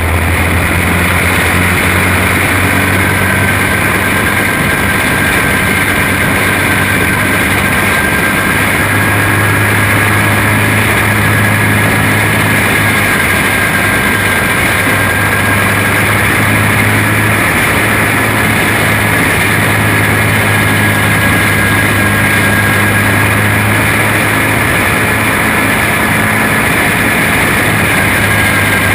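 Racing kart's single-cylinder flathead engine running hard and steady under racing load, heard from on board over a broad rush of wind and road noise.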